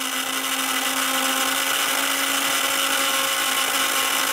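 Small electric motor of a toy spin-art painting machine running, spinning its turntable: a steady whir with an even hum.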